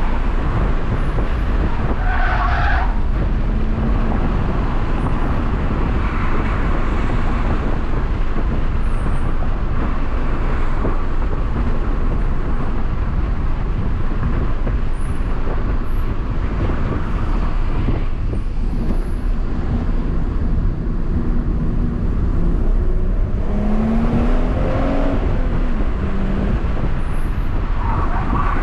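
BMW M140i's turbocharged 3.0-litre straight-six pulling hard, with heavy road and tyre noise heard inside the cabin. The engine note rises in pitch late on. A short tyre squeal comes about two seconds in and another near the end.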